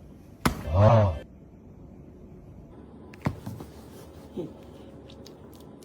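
A sharp click followed at once by a short, loud, low voice-like sound that rises and falls in pitch; about three seconds in comes another sharp click with a few lighter ticks after it.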